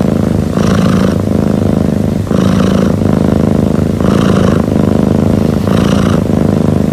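Sleeping long-haired cat rumbling loudly as it breathes: a continuous low, vibrating rumble, with a rasping hiss swelling about every second and a half on each breath.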